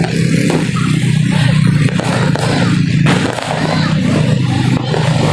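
Motorcycle engine running while riding, with wind and road noise; the engine note drops a little about three seconds in.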